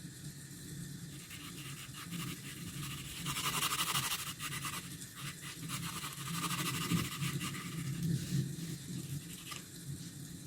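Pencil scratching across sketchbook paper in quick strokes, heaviest a few seconds in, over a steady low hum.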